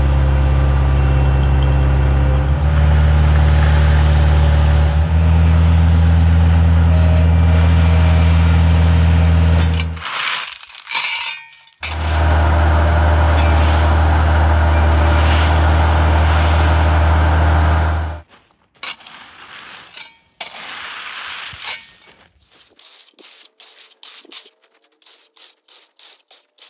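Bobcat skid-steer loader's diesel engine running at high throttle while it dumps a bucket of crushed gravel. Its pitch steps up twice in the first few seconds, it breaks off briefly about ten seconds in, runs again, and stops about eighteen seconds in. Near the end, a rake scrapes through the gravel in quick strokes.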